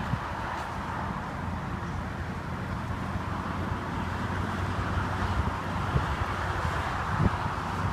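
Steady low hum of the 2014 Mercedes-Benz SL550's power retractable hardtop mechanism as the roof folds into the trunk, with wind noise on the microphone.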